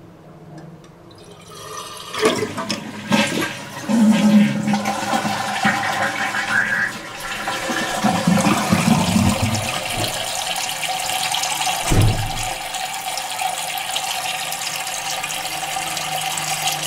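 Two-piece toilet flushed with its push button, tank lid off: water gushes out of the tank, then runs on as a steady rush while the tank refills through the new fill valve. One low thump about twelve seconds in.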